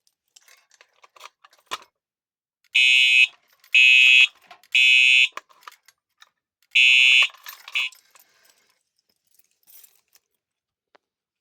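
Simplex 4903-9417 first-generation TrueAlert fire alarm horn, its horn taped over, sounding the temporal-three evacuation pattern. It gives three short blasts about half a second apart, a pause, then a fourth blast and a brief chirp that cuts off suddenly. A few small clicks come just before the first blast.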